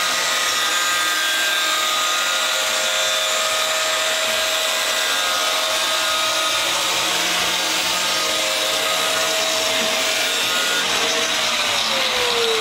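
Angle grinder motor running steadily with a dense grinding hiss. Near the end its whine starts to fall as it spins down.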